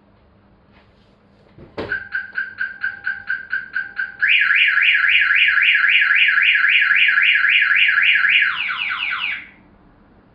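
A knock, then a Viper 3400V car alarm siren going off: first about five quick beeps a second, then a loud, fast up-and-down warble, ending in a few falling sweeps before it cuts off.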